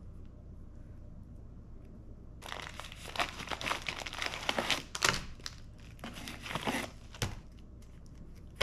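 Pink metallic plastic bubble mailer being torn open and crinkled by hand. It starts after about two seconds of quiet and runs for some four seconds of crackling and tearing, ending with a short knock.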